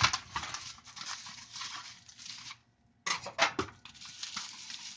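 Plastic packaging and bubble wrap being handled: a run of small clicks, taps and rustles, broken by a brief silent gap a little past halfway.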